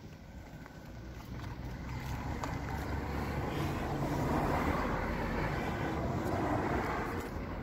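A road vehicle passing by: its engine rumble and rushing tyre noise swell, peak about halfway through and fade toward the end.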